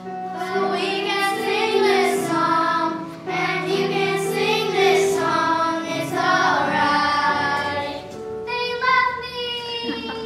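A group of children singing together on stage, held notes and gliding phrases, finishing on one long held note near the end.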